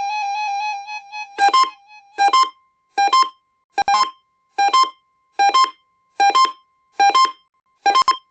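Electronic alert tones from an emergency alert receiver. A steady buzzy tone gives way, about a second and a half in, to short double beeps repeating about once every three-quarters of a second over a faint steady tone.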